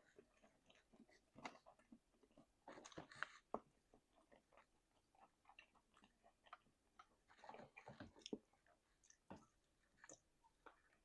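Faint close-up chewing and biting on chicken wings: a run of irregular small mouth clicks, busiest about three seconds in and again near eight seconds.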